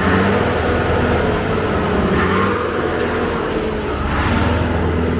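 Old bus engine running at idle with a steady low drone. The engine is smoking heavily and leaking oil out of its exhaust.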